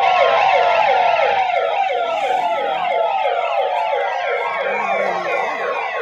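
Several sirens sounding together, their rapid falling sweeps overlapping, over one steady held tone. They are sounded as the signal of a COVID mask-awareness campaign.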